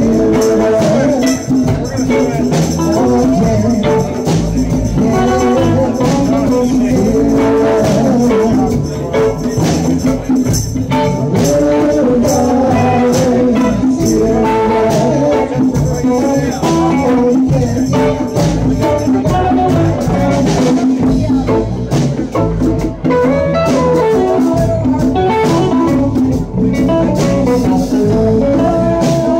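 Live band jamming a blues-rock tune: a guitar playing a melodic lead over drums and a steady low end, loud and continuous.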